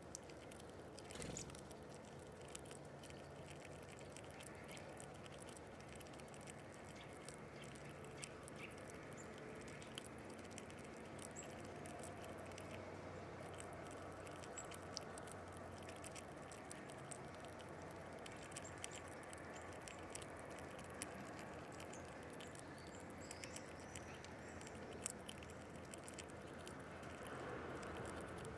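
A small animal feeding on nuts at a window feeder: a fast, irregular scatter of faint clicks and scratches over a low steady hum.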